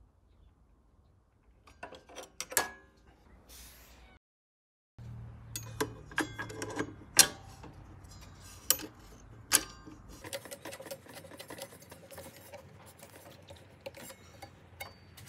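Metal parts of a table saw clicking and clinking as a riving knife is handled and fitted onto its mounting beside the blade by hand. A handful of sharp knocks, the loudest about seven seconds in, give way to a run of lighter, quicker clicks near the end.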